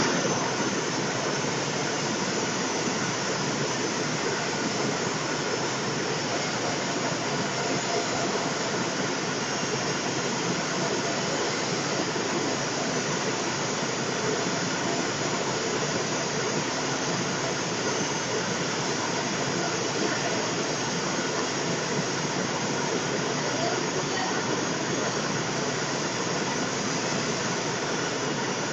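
Steady, even rushing hiss with no change in level and no distinct events.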